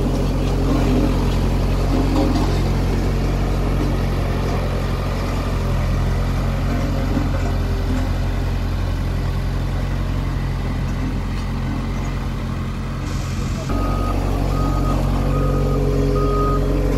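Volvo single-drum road roller's diesel engine running steadily. About fourteen seconds in the engine note dips briefly, then the reversing alarm starts beeping at a steady pace as the roller backs up.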